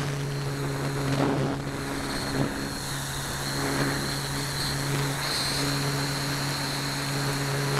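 Radio-controlled Parkzone Radian glider's Firepower 10 electric motor and propeller running steadily, a constant low drone picked up by the onboard camera. Wind rushes over the microphone throughout, with brief louder gusts about a second in and again near two and a half seconds.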